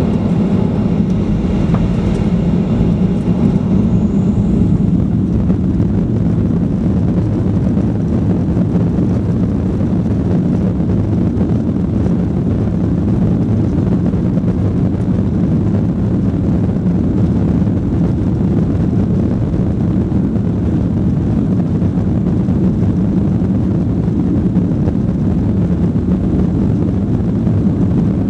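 Boeing 737-800's CFM56-7B turbofan engines running loud and steady, a dense low rumble. A faint high whine fades out in the first few seconds.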